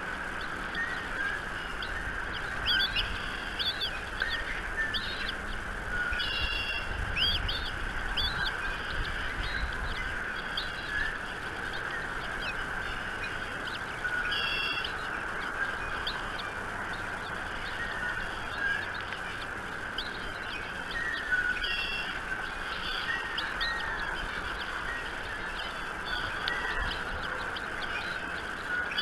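Birds chirping and calling in short, scattered bursts, some a few seconds apart, over a steady background noise.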